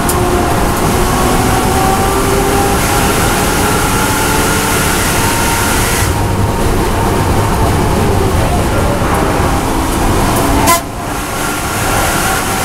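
BMW M240i race car's turbocharged straight-six running hard at high revs, heard from inside the cabin, its pitch rising and falling. About eleven seconds in there is a short sharp crack and the engine sound drops as the driver shifts down from fourth to third.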